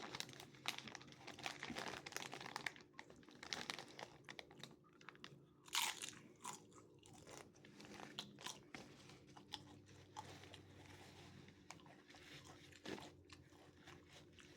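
A person chewing crunchy Dorito chips loaded with taco meat: faint, irregular crunching bites, with one louder crunch about six seconds in.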